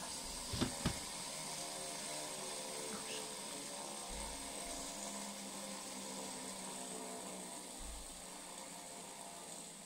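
Fidget spinner whirring as it spins on a laminate floor, a steady whir that slowly fades as it winds down, with two sharp knocks about half a second to a second in as it is set down.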